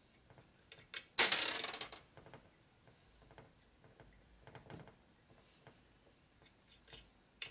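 Nuts and small steel parts on the studs of a 1942 Harley-Davidson WLA transmission being handled: light metallic clicks and clinks, with one short burst of rapid metallic clicking a little over a second in and a sharp click near the end.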